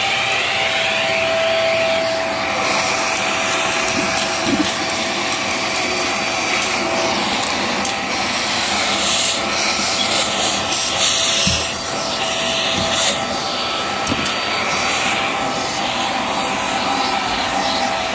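Hart vacuum cleaner running with a steady motor whine and rush of suction as its nozzle is worked along a carpet edge. Scattered clicks and crackles of debris being sucked up come through, busiest around the middle.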